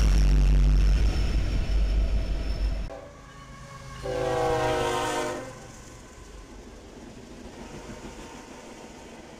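A BNSF diesel freight train rumbling past close by, loud and low, cutting off abruptly about three seconds in. Then an approaching Pan Am Railways locomotive sounds one horn blast, a chord of about a second and a half, over a quieter rumble.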